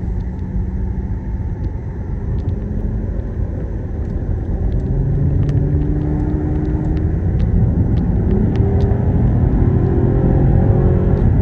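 Car engine and road rumble heard from inside the moving car. From about halfway the engine pulls harder, its pitch rising slowly and the noise growing louder as the car accelerates.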